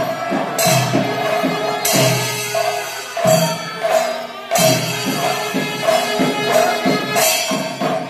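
Kerala temple percussion ensemble playing: drums beaten in a running rhythm with cymbals clashing every second or so over a steady held note. The drums ease off for about a second midway, then come back.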